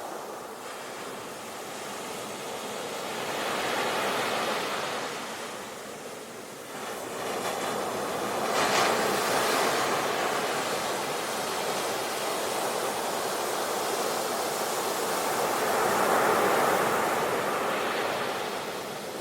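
Ocean waves breaking on the shore, a continuous rushing wash that swells and ebbs, with surges about 4, 9 and 16 seconds in; the one near 9 seconds starts with a sharper crash.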